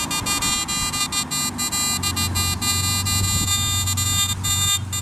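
Garrett AT Max metal detector in all-metal mode, sensitivity at maximum and threshold at 8, giving a buzzing threshold tone that keeps breaking up in brief dropouts: the detector cannot hold a stable threshold at that setting. A steady low hum joins about two seconds in.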